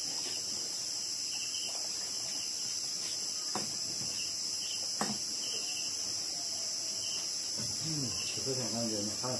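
Steady high-pitched chorus of night insects, with a second insect chirping in short regular pulses about every three quarters of a second. Two sharp clicks of utensils on bowls about a third and halfway through, and a quiet voice near the end.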